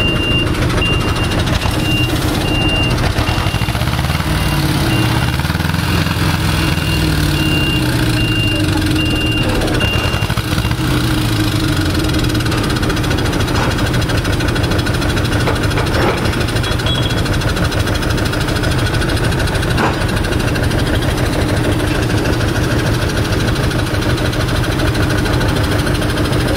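Heavy vehicle engine running, its pitch rising and falling between about four and twelve seconds in. A reversing alarm beeps in an even rhythm until about ten seconds in, and a few light clanks follow later.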